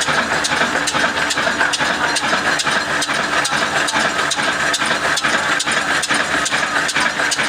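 Slow-speed 22 HP diesel engine of the 'Kala' type, rated at 300 RPM, running steadily with an even, regular beat.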